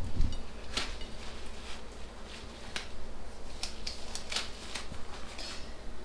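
Black disposable gloves being peeled off the hands: a string of irregular rubbery snaps and crackles.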